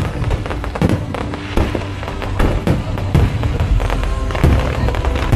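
Fireworks bursting with repeated sharp bangs and crackles, about two a second, over music.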